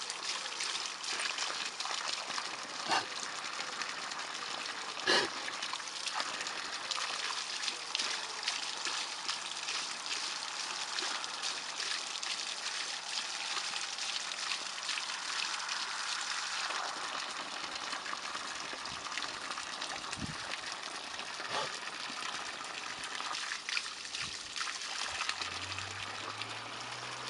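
Water gushing steadily from a well's outlet pipe and splashing onto the ground as a Leonberger drinks from the stream. A few short, sharp splashes stand out, the loudest about five seconds in.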